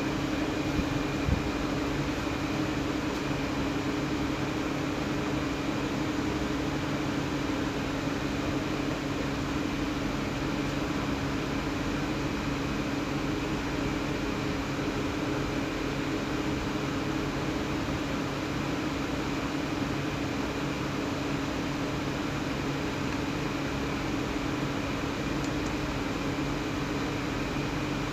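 Steady mechanical hum with an even hiss, unchanging throughout, with a single short click about a second in.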